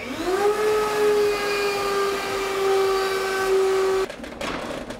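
Table-mounted router motor spinning up: a whine that rises in pitch over about half a second, then runs steadily at full speed over a hiss, and cuts off abruptly about four seconds in.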